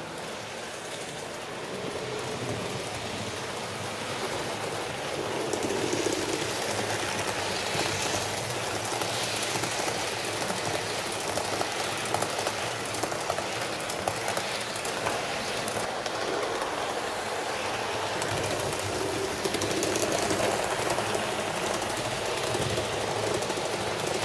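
HO-scale model train, a Fleischmann class 39 steam locomotive pulling its coaches, running along the track with a steady rattle of wheels on rails. It gets louder a few seconds in.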